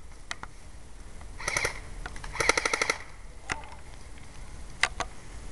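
Airsoft guns firing: a short burst about a second and a half in, then a rapid full-auto burst of about ten shots, with a few scattered single shots or BB impacts around them.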